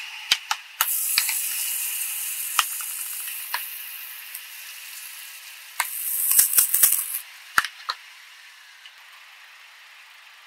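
A plastic bottle of green liquid being crushed under a car tyre. The plastic crackles and snaps in sharp cracks with a hiss through the first few seconds. About six seconds in, the liquid jets out of the spout in a loud hissing spray mixed with a quick run of cracks, and two last snaps follow.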